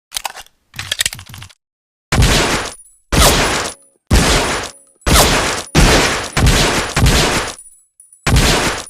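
M1911A1 .45 pistol firing a string of about seven shots, mostly a second apart with a couple closer together, each with a short echoing decay. Softer mechanical clicks come first.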